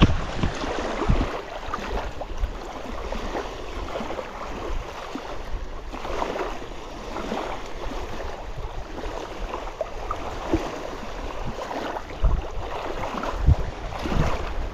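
Wind gusting on the microphone, with small wind-driven waves lapping at the lake's edge. The gusts swell several times near the end.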